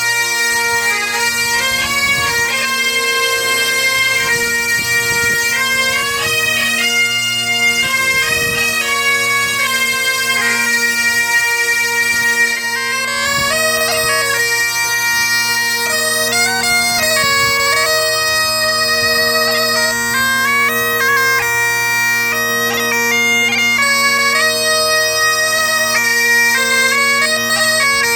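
Breton bagad (pipe band) playing: bagpipes sounding a melody over steady, unbroken drones.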